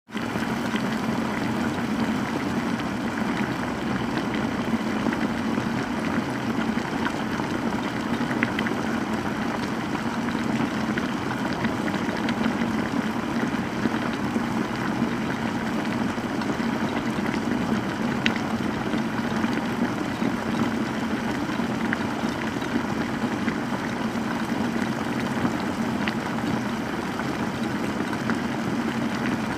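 Water boiling steadily: a continuous low bubbling rumble with a few sharper pops.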